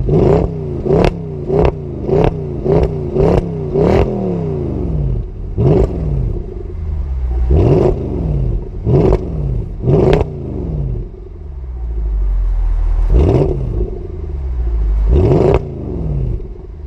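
Mercedes CLS 63 AMG's 6.2-litre V8 on its stock exhaust, idling and blipped. A quick run of about seven short revs comes in the first four seconds, then six more single revs spaced a second or more apart, each rising sharply and dropping back to idle.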